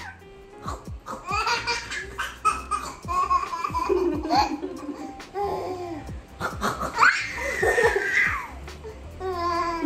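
A baby laughing in several bursts, with a woman laughing along, over background music.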